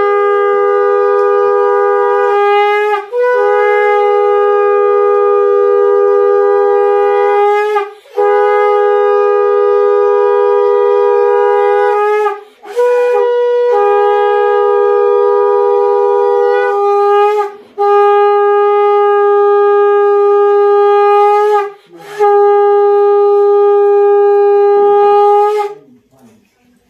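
Conch shell (shankha) blown in six long, steady, loud blasts, each lasting three to five seconds, with short breaks between them and a slight pitch bend at the ends. It is the auspicious conch call of a Hindu wedding rite.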